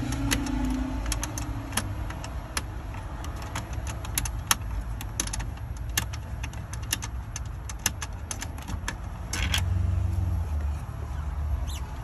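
Irregular small clicks and ticks of the screws being worked loose from the climate control panel in a Freightliner 122SD's dash, over a steady low rumble.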